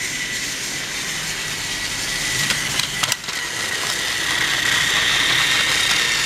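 Small battery-powered toy train motor running with a steady high whine, a little louder in the second half. A few sharp plastic clicks come about two and a half to three seconds in.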